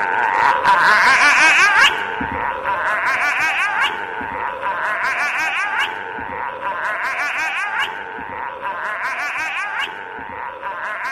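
An eerie, warbling, laugh-like sound over a rising whine, repeating the same pattern about every two seconds, five or six times over: a looped horror sound recording.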